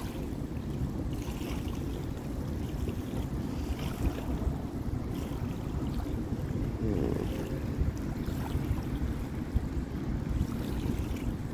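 Wind buffeting the phone's microphone on an open boat: a steady, uneven low rumble.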